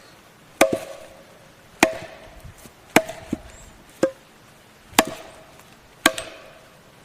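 Axe chopping into the flattened face of a log, six even strokes about a second apart, each a sharp crack with a short ring: roughing up the surface with chop marks.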